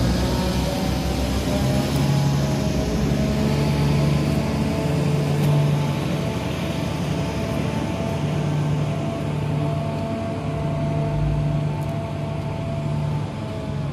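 Caterpillar 14H motor grader's diesel engine running steadily as the machine moves slowly along.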